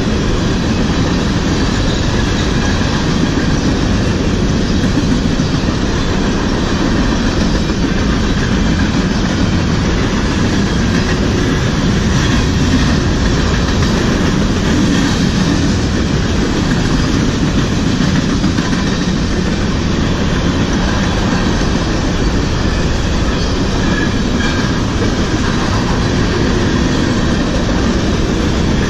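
Freight train of covered hopper cars rolling past close by: a steady, loud rumble and clatter of steel wheels on the rails.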